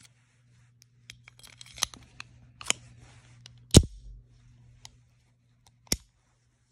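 Phoenix Arms .22 LR pistol being worked by hand: a string of sharp metallic clicks from its slide and magazine mechanism, mixed with light handling rustle. The loudest click comes about four seconds in, and a last one comes near the end.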